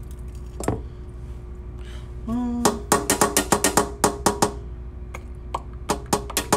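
Quick run of sharp knocks from kitchen utensils worked at the counter, about eight a second for nearly two seconds, with a few scattered knocks near the end. A brief hum comes just before the run.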